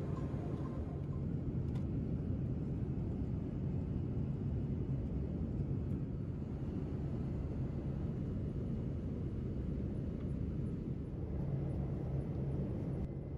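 Steady low rumble of cabin noise inside a Boeing 787 airliner.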